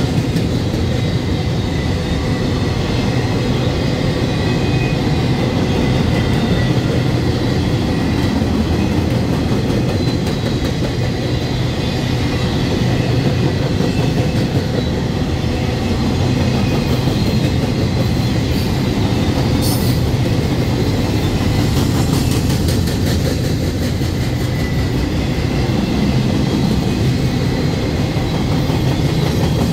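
Freight train passing close by at speed: a steady, loud rumble and rattle of open-top gondola cars rolling over the rails, with thin wheel squeals now and then and one brief sharp click a little under two-thirds of the way through.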